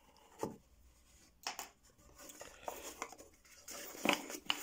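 Cardboard box flaps being pulled open by hand: scattered short scrapes and taps of cardboard, with busier rustling near the end.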